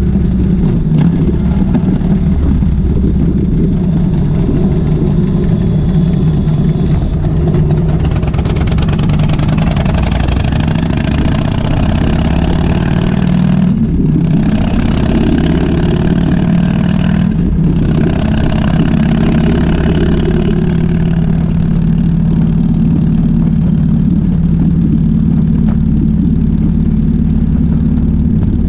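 2005 Harley-Davidson Softail Springer Classic's Twin Cam 88B V-twin engine running steadily while riding. Through the middle the higher part of the sound rises and twice drops out for a moment.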